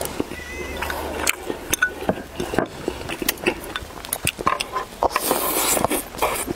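Chopsticks clicking and scraping against porcelain rice bowls as rice is shoveled from the bowls, in many short irregular clicks, with a brief scraping rasp a little past five seconds in.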